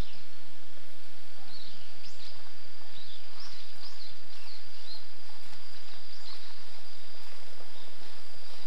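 Outdoor ambience: scattered short bird chirps over a steady hiss, with a thin, steady high tone throughout.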